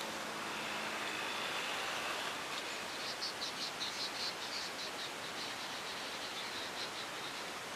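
Steady outdoor hiss, with a fast series of high chirps, about four a second, starting a few seconds in and fading out near the end.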